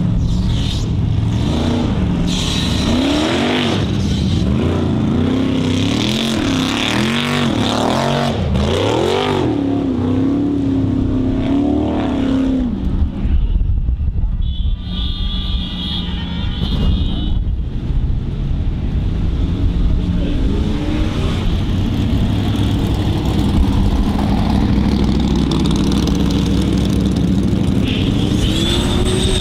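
Formula Offroad hill-climb buggy's V8 engine at high revs, surging up and down over and over as the paddle tyres spin on loose gravel. After a short lull near the middle, an engine runs more steadily at high revs, and its pitch rises near the end.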